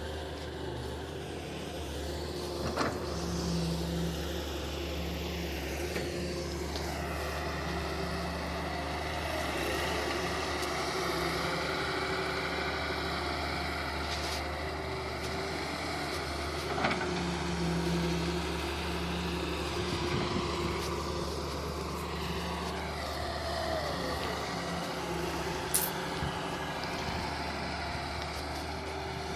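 Wheel excavator's diesel engine running steadily, with a whine that rises and falls as the machine works. There are a few sharp knocks.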